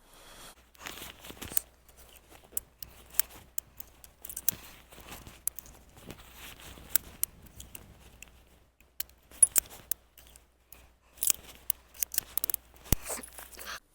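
Irregular small metallic clicks and scrapes from handling a single-action revolver and its .45 Long Colt cartridges, the rounds that failed to fire from light primer strikes.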